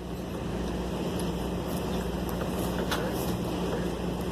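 A machine running steadily with a low, even hum, and a few faint clicks over it, one about three seconds in.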